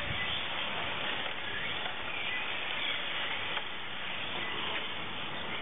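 Small electric 1:18-scale RC touring cars racing on an asphalt track: a steady hiss with a faint motor whine that rises and falls as the cars speed up and slow down.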